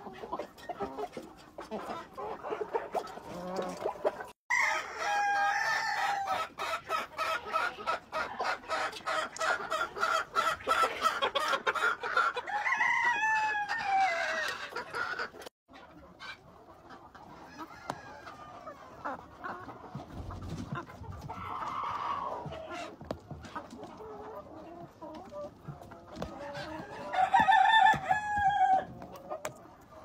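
Chickens clucking and calling while they feed, with a long run of quick, even pecking taps in the first half and a loud call, likely a rooster's crow, near the end.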